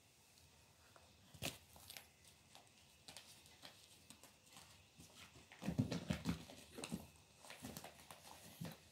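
Kitten playing on a rug: scattered soft thumps, scuffs and clicks of paws, body and a toy against the carpet, with a sharp click about a second and a half in and a flurry of thumps about six seconds in.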